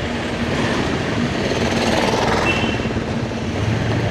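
Motorcycle riding noise: a steady rush of wind on the rider's microphone with the engine running underneath.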